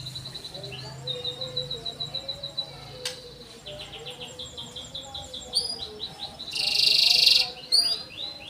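Canary singing in fast trills of repeated high notes, with one loud, harsh buzzing phrase lasting under a second about two-thirds of the way through.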